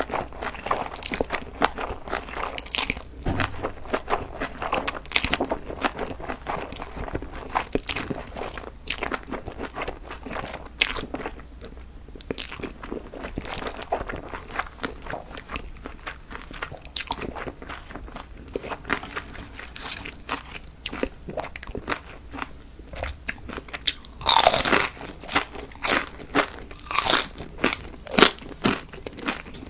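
Close-miked eating: a person biting and chewing food with many crunchy, crackling bites, one noticeably louder crunch about three-quarters of the way through.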